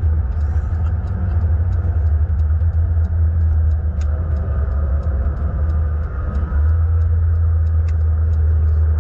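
Mercedes A250e hatchback driving at speed: a steady low rumble of road and engine noise, with faint engine tones rising in the middle and scattered light clicks. About six seconds in the noise dips briefly, then steps up louder.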